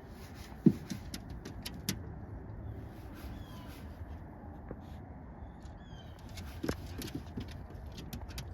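Faint outdoor ambience: a low steady rumble with a few sharp clicks and some short, high bird chirps.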